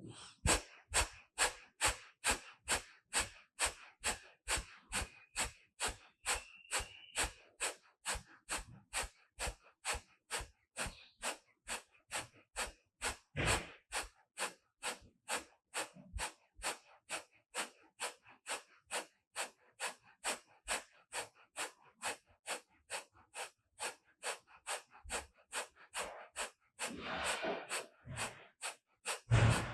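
Kapalabhati breathing: sharp, forceful exhalations pushed out through the nose in a steady rhythm of about two a second, each followed by a quiet passive inhale. A few louder, longer noises come about halfway through and near the end.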